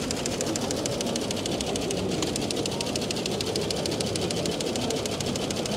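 Electromechanical teleprinter running, printing and punching paper tape at the same time: a fast, even mechanical clatter.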